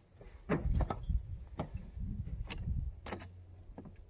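Irregular knocks and clunks of scrap being moved and handled, about eight in all, over a low rumble.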